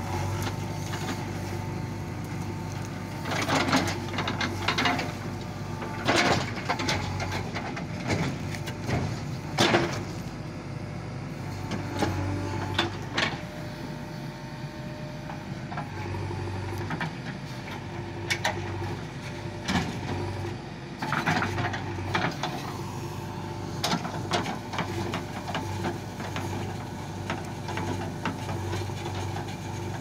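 JCB 3DX Eco backhoe loader's diesel engine running steadily under load as the backhoe arm works, with repeated sharp cracks and knocks as the bucket scrapes and tears through dry brush.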